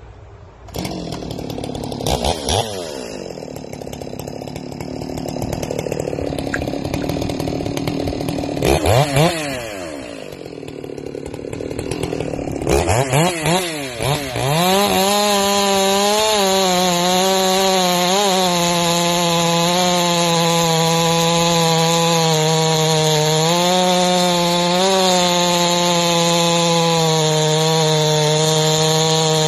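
Ported Stihl MS461 two-stroke chainsaw idling and blipped up briefly three times, then held at full throttle from about halfway, its steady high note sagging a little under load as the 36-inch bar with semi-chisel chain cuts into a large cypress log.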